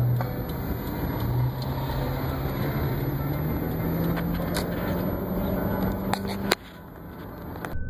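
Road traffic heard from inside a car, with a low engine hum that climbs slowly in pitch and scattered knocks from the phone being handled. The sound drops off abruptly about six and a half seconds in, and a steady high tone starts just before the end.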